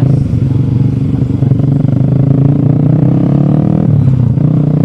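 Motorcycle engine running at a steady, even speed, with a dense low hum of firing pulses.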